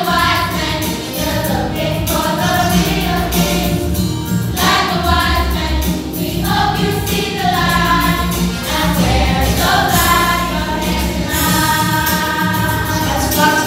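Children's choir singing together over accompanying music.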